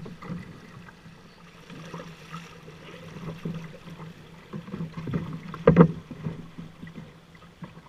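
Shallow rapid water rushing past an aluminium-style canoe hull as the canoe is walked up the current, with scattered small knocks from the boat being handled. A single sharp knock about six seconds in is the loudest sound.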